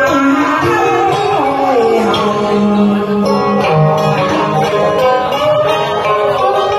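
Karaoke backing track playing an instrumental passage, led by a plucked guitar melody, between sung verses of a Vietnamese duet song.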